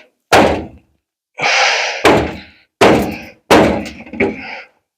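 Dented front-end sheet metal on a 1950 Ford F1 struck hard about five times from underneath with an improvised hammer, to knock the dent back out. Each blow is a loud thunk that dies away quickly.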